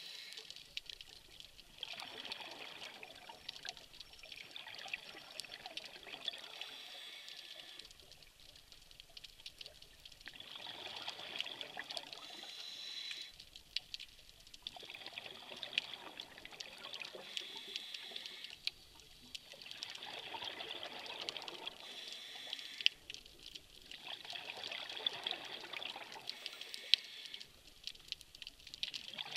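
A scuba diver breathing through a regulator underwater: a bubbling rush of exhaled bubbles alternates with quieter inhalations, about one breath every five seconds. Sharp clicks are scattered throughout.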